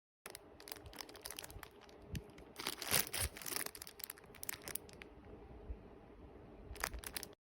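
Rustling and crinkling with many small sharp clicks as a small keyboard tool kit is handled. The sound is busiest around three seconds in and again near the end, and it starts and cuts off abruptly.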